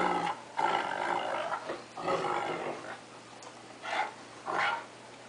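Dogs growling in rough play-fighting between a cocker spaniel and a wolf-Akita mix; it sounds fierce but is play. A run of growls fills the first three seconds, then two short growls come about four seconds in.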